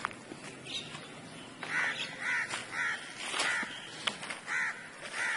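A crow cawing repeatedly: about six short, harsh caws in quick succession, starting about a second and a half in.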